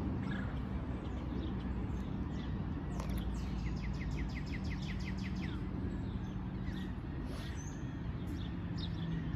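Outdoor ambience with a steady low hum, and a bird singing a quick run of short, downward-sliding chirps, about five a second, from about three seconds in; a few fainter chirps follow.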